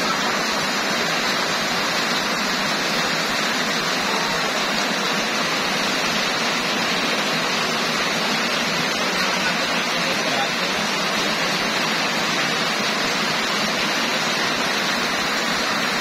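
Heavy rain pouring down in a steady, even hiss that does not let up.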